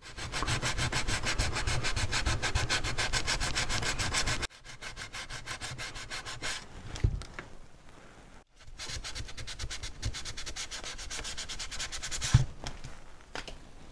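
250-grit sandpaper rubbed back and forth by hand on a wooden model-ship transom block, shaping it in quick, even strokes. The strokes are louder for the first few seconds, then go on more softly.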